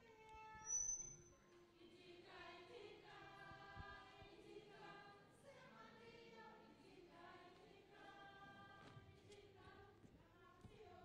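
A church choir singing faintly, the voices coming in about two seconds in. About a second in, a brief high squeal sounds.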